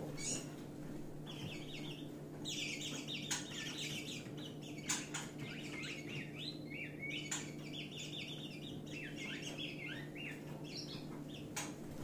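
African yellow white-eyes chattering agitatedly in fast runs of short, high, falling chirps as two birds fight through the bars of neighbouring cages, with a few sharp clicks and wing flutters against the cage.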